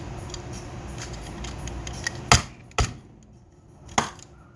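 Three sharp clicks and knocks of small hard parts being handled on a workbench, the first about two seconds in, over a low hum that drops away at about the same time.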